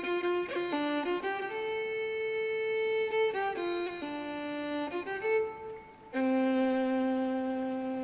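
Background music: a bowed violin playing a slow melody of long held notes, one note sustained for about three seconds in the second half.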